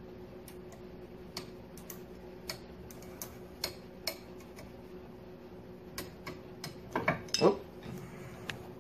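Torque wrench's ratchet clicking in single, irregular clicks as it is worked on an AR-15 barrel nut. About seven seconds in come two louder metallic knocks as the wrench is taken off the nut.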